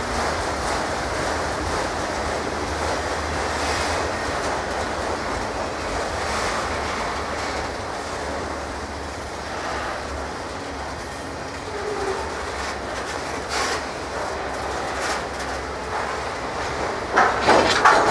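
Norfolk Southern freight train cars rolling past, a steady rumble of steel wheels on rail. Near the end come a few louder, sharper clacks of wheels over rail joints.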